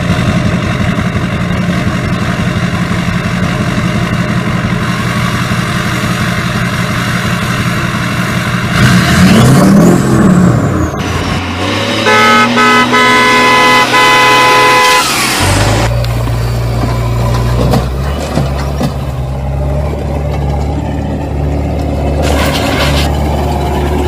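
Truck engine and horn sound effects: an engine runs with a quick, even throb, revs up and down about ten seconds in, then a truck horn honks for about three seconds, after which a lower, steady engine drone carries on.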